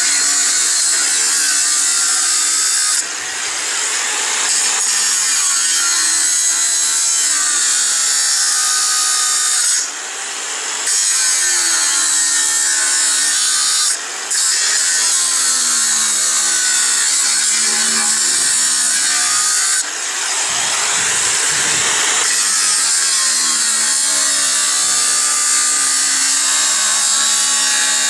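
Angle grinder cutting 6 mm steel plate: a loud, steady grind with a strong high hiss, the motor's pitch sagging and recovering as the disc is loaded. The cut eases off briefly four times, the hiss dropping away for a moment each time.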